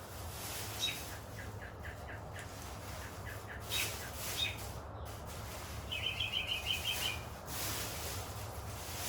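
Small bird chirping in short groups, then a quick trill of about ten high notes about six seconds in, over a low steady hum.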